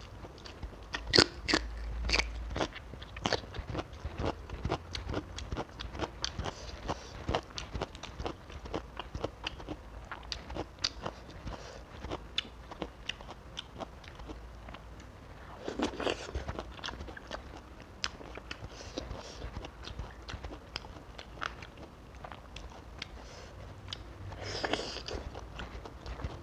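Close-miked chewing and crunching of fried tilapia and raw vegetables, with many quick, irregular wet mouth clicks. Two short rushes of noise come around the middle and near the end.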